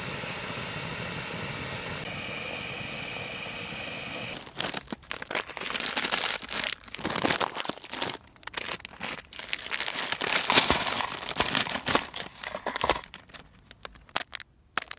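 A steady hiss for the first four seconds or so, typical of a small gas camping stove burner. Then loud, irregular crinkling and tearing of a plastic instant-noodle packet being opened.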